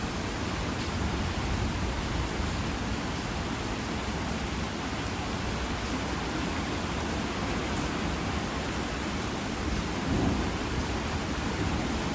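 Heavy rain falling steadily in a summer thunderstorm, with a low thunder rumble underneath and a brief swell about ten seconds in.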